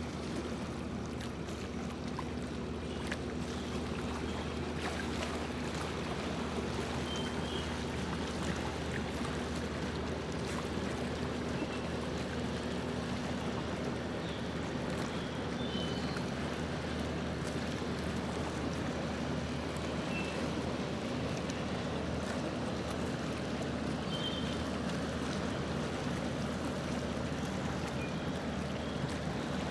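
A small boat under way on a lake: a steady low motor hum with water washing along the hull. A few brief high chirps come through now and then.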